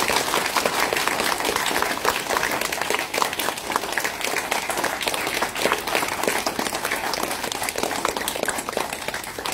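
Crowd of primary school children applauding: a long, steady round of dense clapping.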